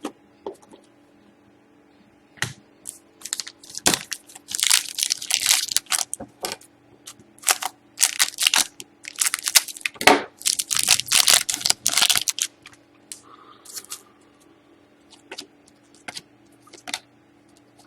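Trading cards and their plastic or foil wrappers being handled: crinkling and tearing in irregular bursts with sharp clicks, busiest in the middle stretch, over a faint steady hum.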